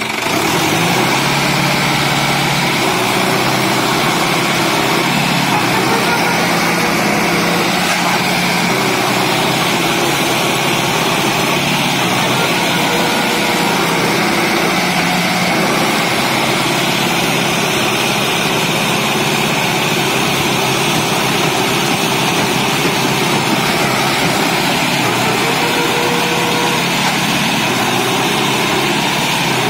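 Sonalika DI 60 tractor's diesel engine running hard and steadily as the tractor, bogged in deep mud, tries to pull itself out, its pitch shifting slightly now and then.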